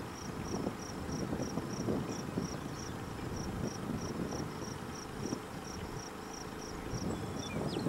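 Crickets chirping steadily, about three short high chirps a second, over wind rumbling on the microphone.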